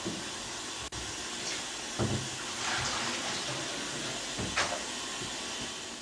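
Tap water running steadily into a shallow tray of water in which a print is being developed, with a couple of brief knocks.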